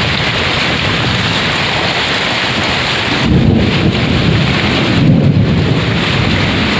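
Heavy rain pouring steadily onto flooded paddy fields, with muddy water splashing close by as it is flung aside by hand. Twice, a little after the middle and again near the end, a low rumble swells up over the rain.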